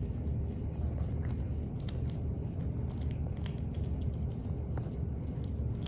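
Kitten chewing and licking wet pâté cat food from a plate: a run of small, irregular wet clicks and smacks, over a steady low hum.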